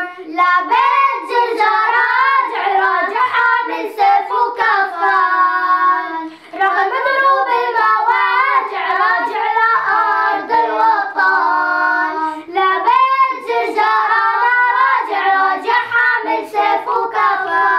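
Three young girls singing an Arabic nasheed together, unaccompanied, with short breaths between phrases.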